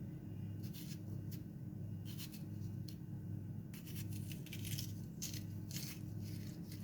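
Metal vegetable corer scraping out the inside of a raw radish: short, irregular rasping strokes, coming more often in the second half, over a steady low hum.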